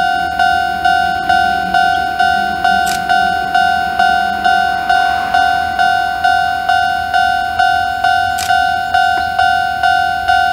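Japanese railway level-crossing warning bell ringing: an electronic two-tone ding repeated steadily about twice a second, signalling an approaching train.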